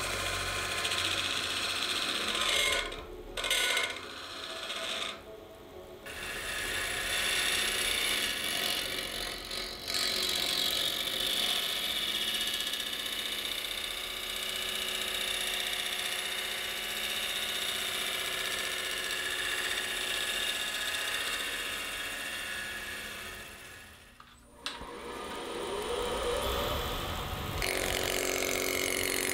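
Wood lathe spinning a wood-and-resin blank while hand-held turning tools, including a carbide-tipped tool, cut into it: a steady scraping hiss over the lathe's running hum, broken by a few brief drops.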